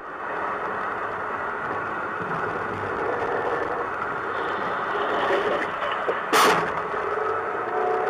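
Steady tyre and engine noise of a car driving on a snow-covered road, as heard from inside the car. About six seconds in there is a brief, loud, sharp burst of noise.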